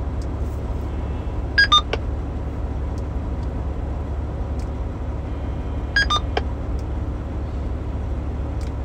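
AllStar node courtesy tone through a TidRadio H8 handheld's speaker: a short falling two-note beep, "doo-doo", heard twice as the radio is unkeyed. No squelch-tail burst follows either beep, the sign that the H8's latest firmware has removed tail squelch. A steady low rumble runs underneath.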